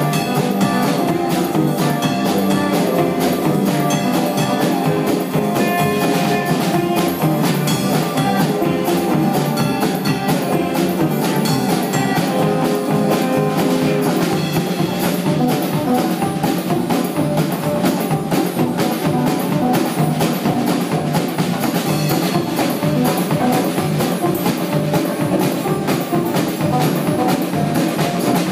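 Live band playing an instrumental passage with no vocals: a drum kit keeping a steady beat under an upright bass and banjo.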